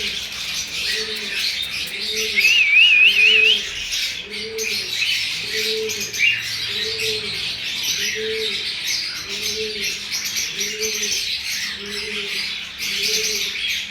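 A bird gives low, evenly repeated cooing calls, about three every two seconds, over a steady chatter of many small birds chirping. A short wavering whistle comes about two seconds in.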